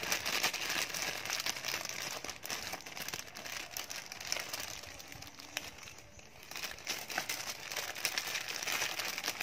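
Clear plastic packets of fishing split rings crinkling and rustling as they are handled and shuffled in a cardboard box, with scattered light clicks. It eases off briefly past the middle, then picks up again.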